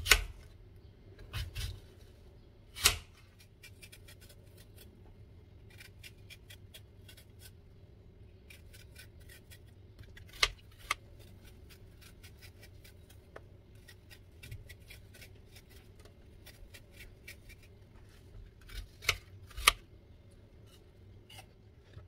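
Small kitchen knife cutting and peeling a fresh apple: crisp cuts through the flesh and runs of quick small ticks as the skin is pared away. Several sharp knocks stand out, the loudest near the start and twice close together near the end.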